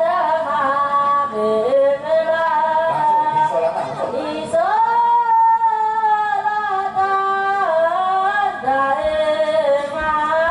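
A young boy singing solo through a microphone and PA in a high voice, holding long notes with ornamented turns. A long sustained note begins about halfway through.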